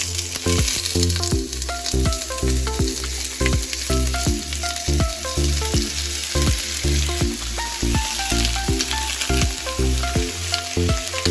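Raw pork chunks sizzling as they drop into hot oil and garlic in a stainless steel pan, with a wooden spoon scraping them off a cutting board. A steady hiss sets in as the meat lands, over background music with a steady beat.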